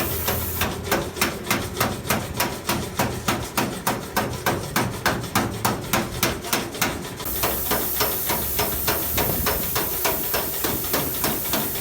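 Steady rapid knocking, about three sharp strikes a second, with a high hiss that stops about a second in and returns a little past the middle.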